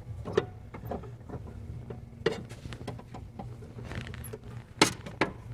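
Scattered light clicks and taps of hand tools working on a Porsche 912's throttle cable and linkage, the sharpest about five seconds in, over a steady low hum.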